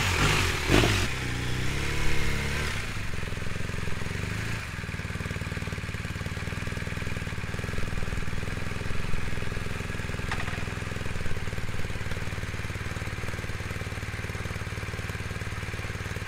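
BMW R1250GS boxer twin running through an SC Project titanium Adventure exhaust. Two knocks in the first second, then the engine note shifts for a few seconds before settling into an even, steady run.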